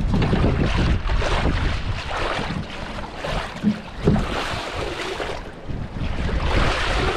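Water sloshing and splashing in a metal tub as a plastic basket of fish is swirled and dunked to wash them, in repeated surges, with two short thumps about four seconds in. Wind rumbles on the microphone.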